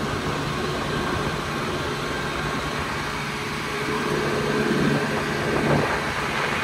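A vehicle engine running at a steady speed, a constant low hum under a wash of noise, getting a little louder from about four seconds in.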